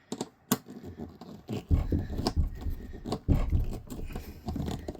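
Hands working on the plastic water-line fittings of an RV toilet valve, tightening them by hand: scattered clicks, knocks and scraping, with a low rumble of handling noise from about two seconds in.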